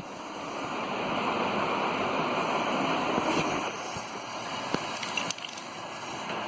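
Steady rushing hiss of gas, with a few sharp clicks between about four and five and a half seconds in.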